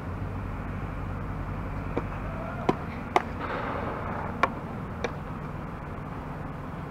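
A softball snapping into leather fielding gloves: a handful of sharp pops between about two and five seconds in, the loudest about three seconds in, over a steady low rumble.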